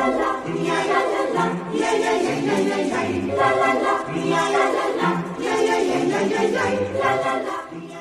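Choral music: a choir of voices singing sustained chords in repeated phrases about every second and a half, fading out near the end.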